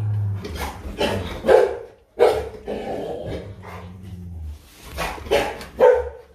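Rottweiler growling low, with several short, loud barks breaking in.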